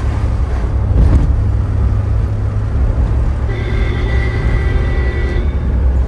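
A car driving, with a heavy steady rumble of engine and road noise. A thin high whine sounds over it from about halfway through for a couple of seconds.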